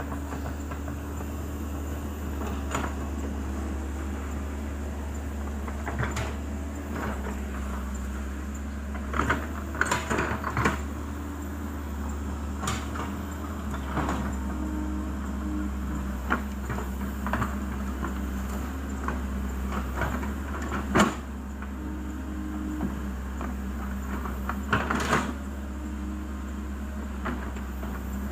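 Excavator's diesel engine running steadily, with scattered metal clanks and knocks, the loudest about two-thirds of the way through.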